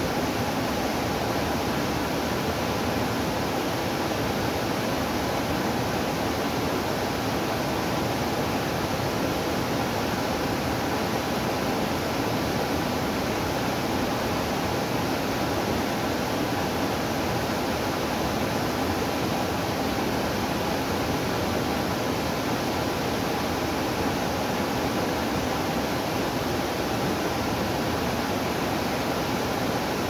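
Small waterfall pouring over a rock ledge into a pool, a steady rush of falling water without a break.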